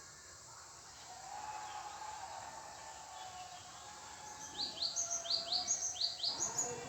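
A bird calling over steady background noise: about two-thirds of the way in, it gives a quick run of short, high chirps that rise sharply in pitch, in three close pairs over about two seconds.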